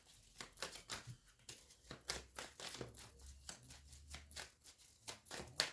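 Tarot cards being handled and shuffled by hand: a run of quick, irregular papery clicks and rustles, with one sharper snap near the end.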